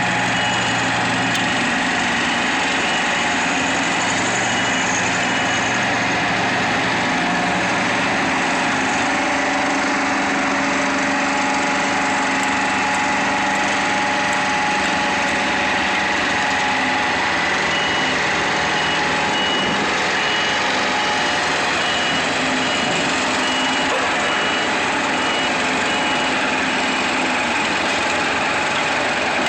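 Heavy diesel paving equipment running steadily, with a vehicle's reversing alarm beeping at the start and again through the second half.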